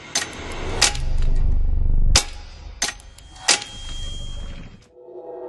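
Cinematic logo-sting sound effects: five sharp hits, with a low rumble swelling under the first three and stopping abruptly on the third. About five seconds in, a sustained musical chord starts to swell.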